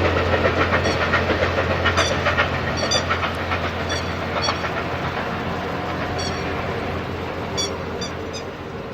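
Twilight Express Mizukaze, a hybrid diesel-electric sleeper train, running past and moving away. A low engine hum fades about two seconds in, and sharp wheel clicks over the rail joints come at irregular intervals. The whole sound slowly dies away.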